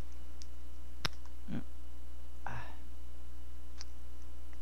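Plastic film casing being peeled off a stick sausage: a few sharp clicks, the loudest about a second in, and two short crinkles of the film, over a steady low hum.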